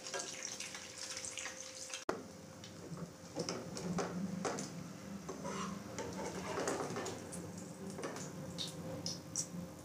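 French toast frying in shallow oil in a metal pan, a light sizzle, with a slotted metal spatula scraping and clicking against the pan as the slices are pressed and turned.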